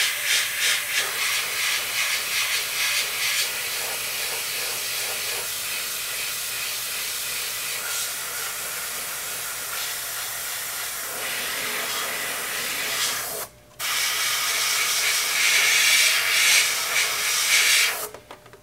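Airbrush spraying paint: a steady hiss of air and paint. It flutters in quick pulses for the first few seconds, cuts off for a moment about thirteen seconds in when the trigger is let go, then sprays again and stops just before the end.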